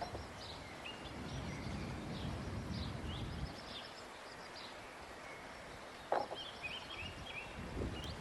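Small birds chirping and singing in short repeated high notes over low outdoor background noise, with a low rumble for the first few seconds and a single faint knock about six seconds in.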